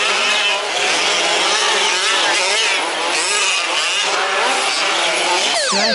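Several 1/5-scale two-stroke petrol RC trucks racing on a track, their small engines revving up and dropping off over one another. Near the end a quick run of falling whines starts.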